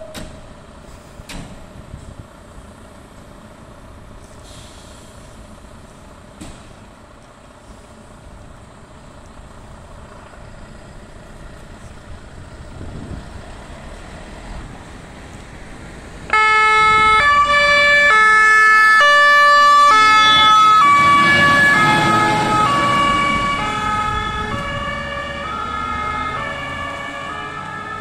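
MAN fire engine's diesel engine running low as it pulls out of the bay. About sixteen seconds in, its two-tone siren switches on suddenly, alternating between a high and a low note about once a second. The engine rumble swells as the truck passes close, then the siren fades as it drives away.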